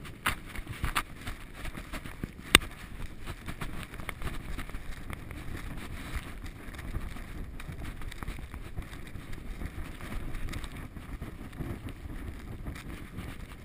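Muffled rubbing and knocking on a covered action-camera microphone, with a sharp knock about two and a half seconds in, over a steady low rumble.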